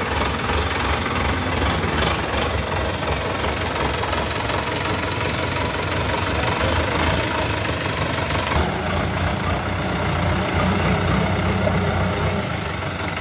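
Diesel engine of a heavy machine running steadily, its low note shifting and growing a little stronger about two-thirds of the way in.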